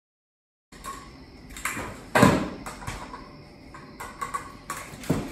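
Kick scooter rolling and clattering on a concrete garage floor, with several sharp knocks of the deck and wheels striking the floor, the loudest about two seconds in.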